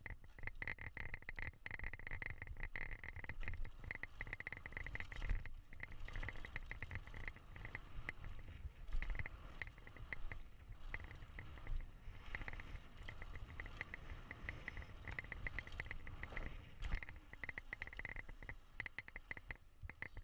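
GT Force X Expert mountain bike rolling fast over a dirt and gravel trail: a steady rapid rattling tick from the bike, low tyre rumble, and a few sharp knocks as it hits bumps.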